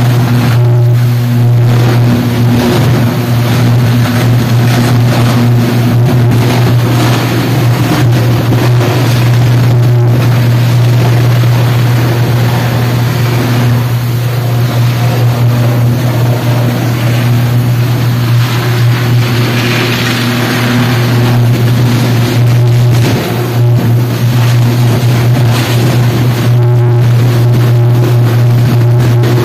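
High-voltage electrical arc at a substation, burning continuously with a loud, steady low buzz and a rough crackle over it. This is a sustained electrical fault.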